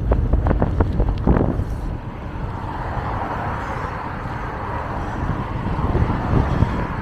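Wind buffeting a handlebar-mounted camera's microphone on a moving bicycle, a steady low rumble. It is broken by a quick run of sharp clicks and rattles in the first second and a half, and a rushing hiss rises and fades in the middle.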